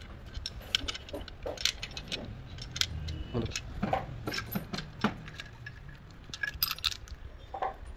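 Steel pistons, shaft and retaining plate of an axial piston pump clinking against one another and against the cast housing as they are worked loose and lifted out by hand: a run of irregular sharp metallic clicks and clinks.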